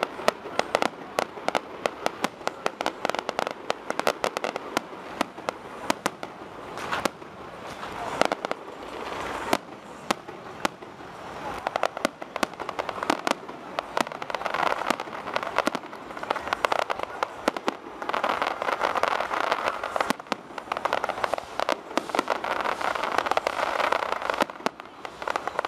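Aerial fireworks display: shells bursting in a rapid, unbroken barrage of sharp bangs, in stretches so dense that the reports merge into a continuous crackling rumble.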